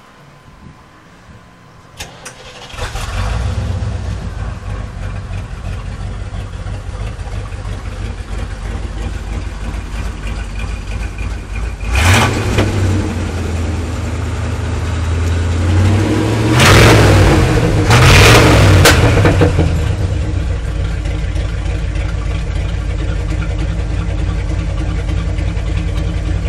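Small-block Chevy V8 (an early-'70s Corvette engine with Edelbrock heads and a Torker intake) starting a few seconds in, running with its mufflers removed. It is blipped up in revs once near the middle and twice more a few seconds later, then settles back to a steady idle.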